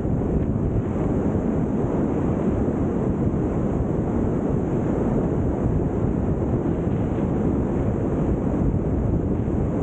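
Wind rushing over the camera's microphone during a wingsuit flight at speed: a steady, heavy roar of airflow with no breaks.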